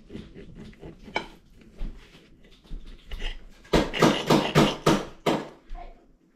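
Knife and fork clinking and scraping on a plate while cutting steak, with scattered light clicks and then a loud run of about six sawing scrapes, roughly three a second, about four to five seconds in.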